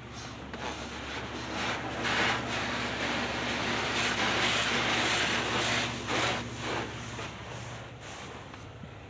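Southern Pride Turbo automatic car wash working over the car, heard from inside the cabin: water and wash equipment rushing against the glass and body. It builds about two seconds in, is loudest through the middle and eases off near the end, over a steady low hum.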